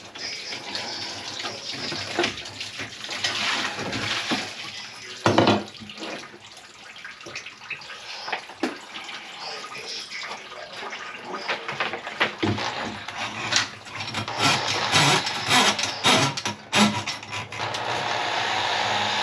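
Water sloshing and splashing in a grease-clogged kitchen sink, with irregular knocks and clanks, the sharpest about five seconds in. Near the end a steady mechanical noise sets in and holds.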